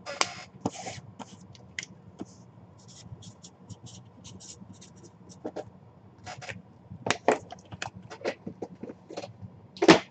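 Cardboard product boxes being handled on a table: scattered scrapes, taps and rustles, with a sharper knock just before the end.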